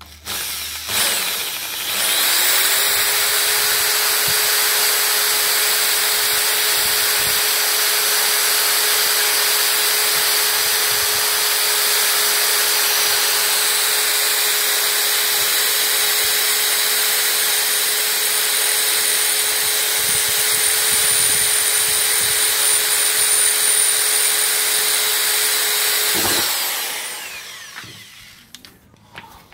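Ryobi electric drill running steadily under load, a blunt twist bit boring through a steel fender panel. The motor spins up about two seconds in, holds a steady pitch, and winds down near the end.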